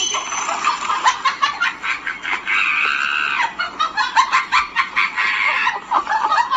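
Animal calls, many short notes in quick succession with a steadier stretch in the middle, stopping abruptly near the end.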